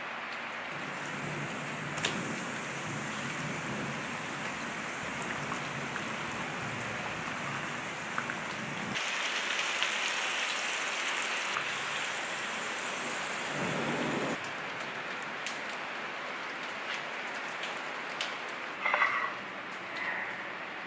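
Potato fries deep-frying in a small pot of hot oil, a steady sizzling and bubbling. There are a few short clinks near the end.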